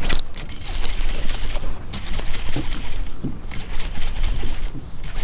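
Wind rumbling on the microphone with a steady low roar, and choppy water hissing and lapping against a bass boat's hull in gusts that come and go every second or so.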